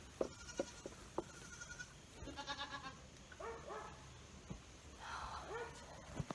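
Nigerian Dwarf goats bleating: a wavering, pulsing bleat about two seconds in, then several shorter calls. A few light knocks in the first second or so.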